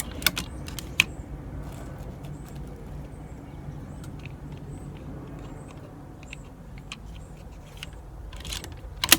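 Scattered sharp clicks and light rattles of equipment being handled, loudest at the start, about a second in and near the end, over a steady low background rumble.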